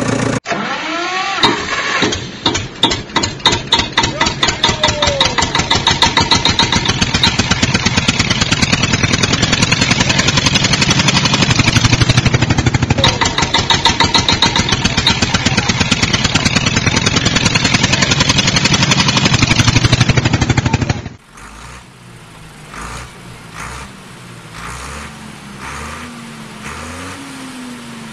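Tractor engine starting with a few slow, separate chugs that quicken into a steady run. About 21 seconds in it cuts abruptly to a quieter engine sound with a wavering low tone.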